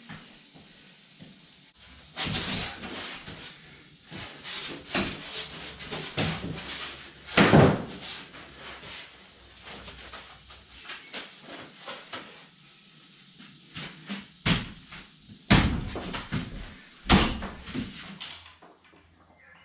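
Irregular knocks and thumps with some scraping in between, the loudest about seven and a half seconds in, as foam insulation board is handled and pressed down onto glue on the bus floor.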